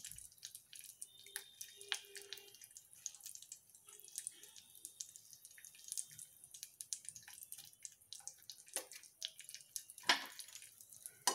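Mustard seeds and curry leaves crackling and popping in hot ghee in a small aluminium pan: irregular small pops and spits, with two louder pops near the end.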